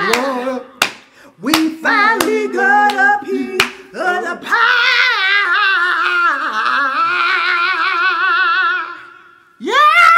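A woman singing into a karaoke microphone: a run of short notes, then one long note held with heavy vibrato for about four seconds, with a few sharp hand claps in the first few seconds. A man's voice comes in loudly near the end.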